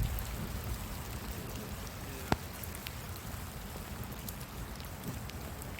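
Heavy rain pattering steadily on surfaces, with scattered drop ticks and one sharp tap about two seconds in.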